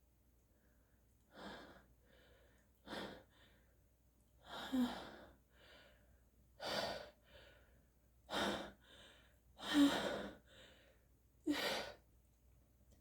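A person's sharp, gasping breaths, seven louder ones about every one and a half to two seconds with softer breaths between, a few with a short voiced catch, typical of the gasps that build up to a sneeze.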